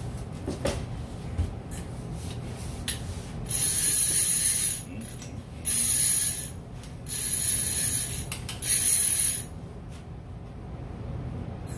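Clicker ratchet of a gold conventional fishing reel buzzing as the spool is spun by hand, in four bursts of about a second each, with a few lighter clicks before them.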